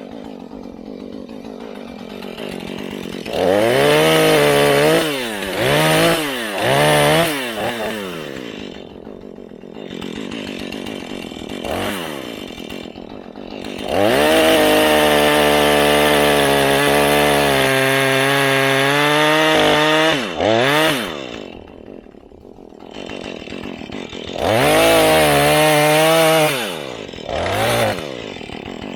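Husqvarna 435 two-stroke chainsaw idling and blipped to high revs several times, then held at full throttle for about six seconds, the pitch sagging under load as it cuts; another long full-throttle run near the end.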